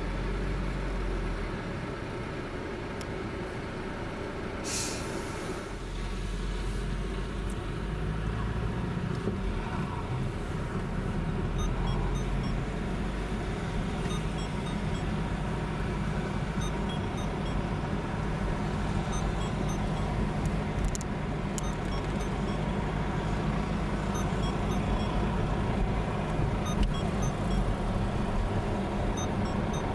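Car engine and road noise heard from inside the cabin while driving slowly on a wet road: a steady low rumble. A short hiss comes about five seconds in.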